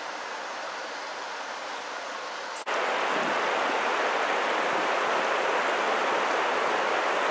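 Steady rush of flowing river water. It jumps louder at a cut about two and a half seconds in.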